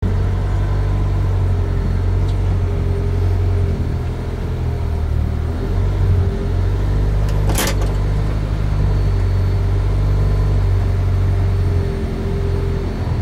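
Rally car's engine idling steadily, heard from inside the cabin, with one sharp click about seven and a half seconds in.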